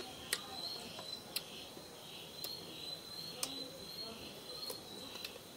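Steady high trill of night insects, gently pulsing. A few short, sharp clicks of eating come through on top.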